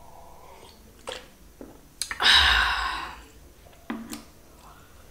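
A person drinking water from a glass, with small clicks, then a loud breathy exhale about two seconds in that lasts about a second.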